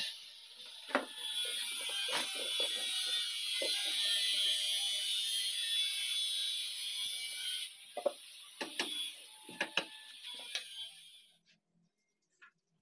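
A steady high hiss with scattered knocks and clicks of hand work on a wooden machine frame and its metal fittings. The hiss cuts off abruptly near the end.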